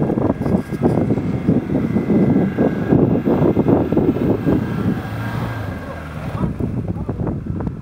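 Off-road vehicle engine running, with wind buffeting the microphone; the noise eases somewhat in the last couple of seconds.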